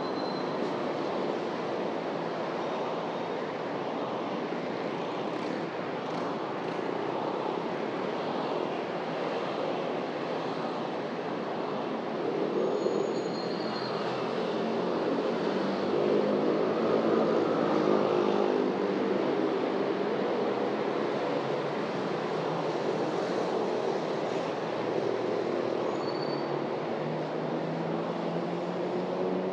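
Street traffic: vehicle engines running and passing, steady throughout and louder for several seconds in the middle as vehicles pass close by.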